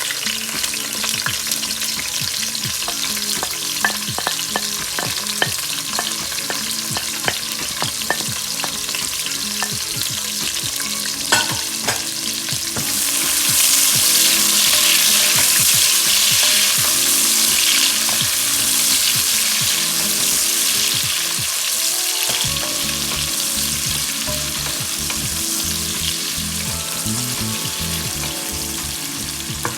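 Onions frying in hot oil, sizzling steadily, with short sharp clicks of a spoon as they are stirred. The sizzle grows louder for several seconds about halfway through.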